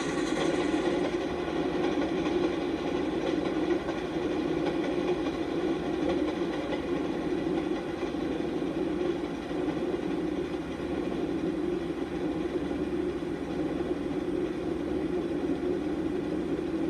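Passenger train rolling past: a steady, unbroken rumble of wheels on rail.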